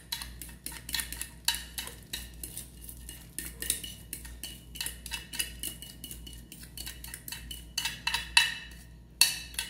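A metal utensil tapping and scraping against the inside of a jar as thick beaten egg, sugar and margarine batter is scraped out into a bowl: many quick, irregular clicks, some with a short ring, a few louder ones near the end.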